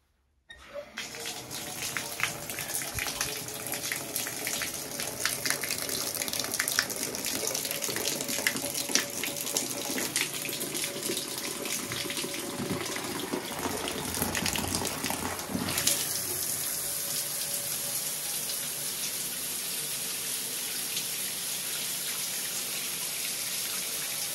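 Bathtub tap turned on: water starts suddenly about half a second in and runs splashing into the tub. About sixteen seconds in the flow is switched over to the riser's shower head, and the sound becomes a steadier, brighter hiss of shower spray.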